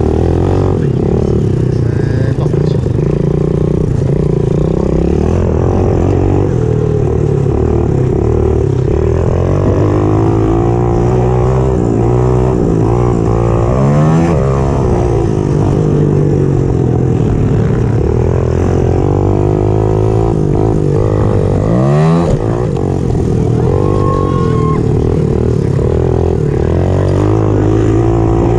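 Pit bike's single-cylinder four-stroke engine ridden hard on a dirt track, heard from onboard: revs rising and falling again and again through throttle and gear changes, with a sharp climb in revs about three quarters of the way through.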